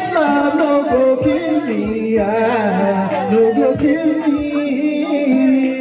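A man singing into a microphone over music with a steady beat, his voice bending through long wavering runs.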